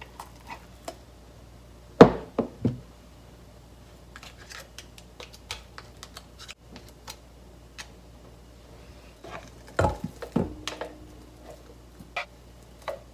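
A spatula scraping fish paste off a food processor's plastic bowl and blade and knocking it against a stainless steel mixing bowl: a few sharp knocks about 2 s in, many light clicks and scrapes, and another cluster of knocks near 10 s after which the metal bowl rings briefly.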